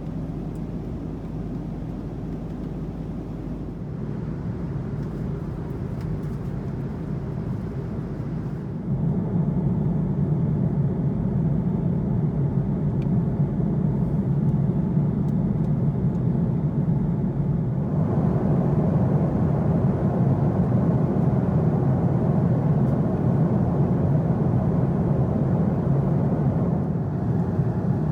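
Steady cabin noise of an Airbus A330-300 in flight: a low, even rush of airflow and engine noise. It steps louder about nine seconds in and again about eighteen seconds in.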